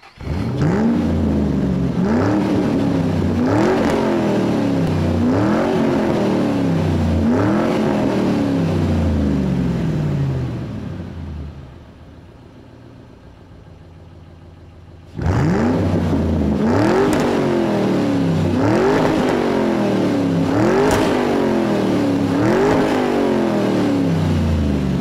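Car engine revved over and over, each blip of the throttle rising quickly in pitch and falling back, about once every two seconds. The revving drops away to a much quieter sound for about four seconds in the middle, then starts again.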